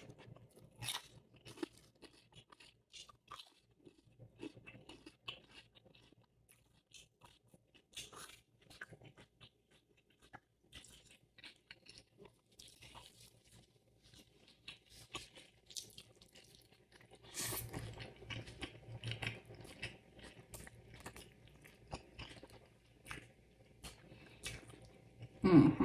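Close-miked eating: chewing and crunching of a smash burger and ridged potato chips, with scattered soft crunches and wet mouth sounds. The chewing grows busier about two-thirds of the way through.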